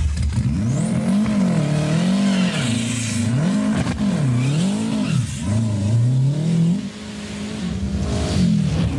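Renault 5 Turbo rally car's engine revving hard at speed. Its note rises and falls over and over as the throttle comes on and off, with a short dip in level near the end.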